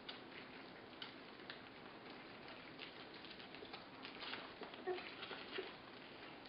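Litter of 24-day-old Border Collie puppies eating soft food from shallow trays: faint, scattered lapping and smacking clicks, with a couple of brief squeaks about five seconds in.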